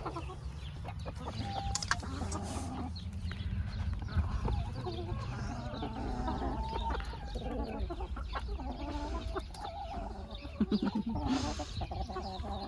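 A flock of brown laying hens clucking continually while they feed, with sharp taps of beaks pecking grain off concrete, over a low steady rumble.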